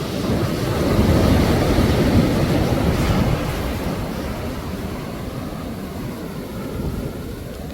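Ocean shorebreak: a wave breaks and washes up the beach as a deep, rushing rumble. It swells about a second in and slowly fades, then cuts off abruptly at the end.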